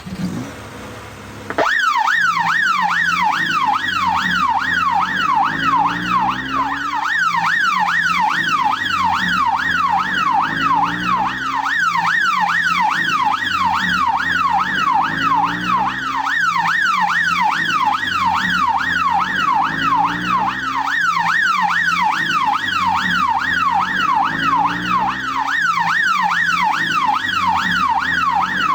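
Police car siren in a fast yelp: rapid rising sweeps, several a second, that start suddenly about a second and a half in. A car engine pulls away underneath.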